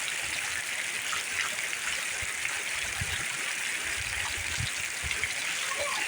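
Steady rushing hiss of heavy rain and running water, with scattered short low knocks.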